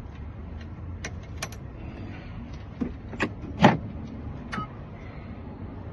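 Small metal clicks and taps from handling a lock cylinder and its pins during rekeying, about six in all, the loudest about two-thirds of the way through, over a steady low hum.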